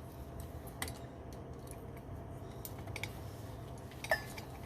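A few light, scattered clicks and taps of coat rack parts and small hardware being handled, with one sharper click about four seconds in.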